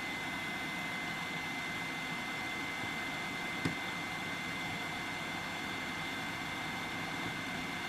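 Yihua 959D hot air rework station blowing steadily at half air flow: an even rush of air with a steady high whine from its fan. A single small click sounds about halfway through.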